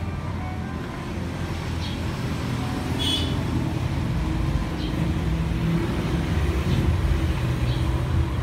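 Honda XRM 125's single-cylinder four-stroke engine idling steadily, getting a little louder about three seconds in.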